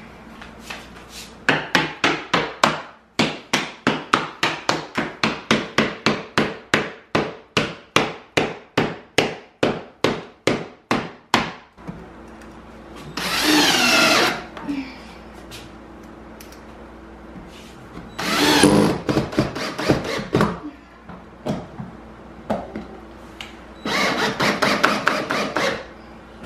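A hammer striking in a steady run of blows, about three a second, for some ten seconds. Then a cordless drill driving screws into drywall in three short runs, each a second or two long.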